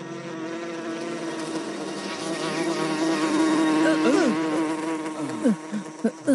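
Loud, wavering buzz of a large flying insect's wings passing close overhead, swelling near the middle, with a few quick swooping rises and falls in pitch.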